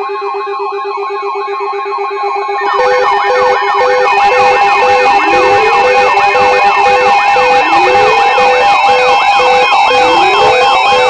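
Emergency alert audio: a loud, steady two-tone attention signal layered with electronic sirens, one a fast warbling yelp. About three seconds in, slow rising wail sirens and a pulsing beep join, and the sound gets louder.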